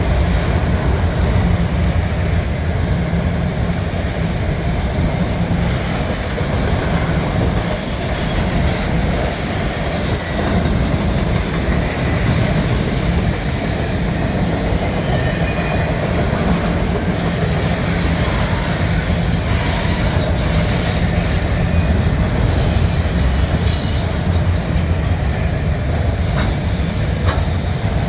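Loaded autorack freight cars rolling past close by: a steady, loud rumble of steel wheels on rail, with brief high wheel squeals now and then. The clearest squeal comes about eight seconds in and lasts a couple of seconds.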